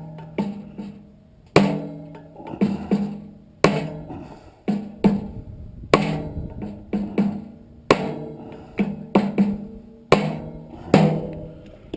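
Hammer blows on a furnace blower motor to drive it out of its squirrel-cage blower wheel: a hard strike about every two seconds with lighter knocks between, the metal ringing after each blow.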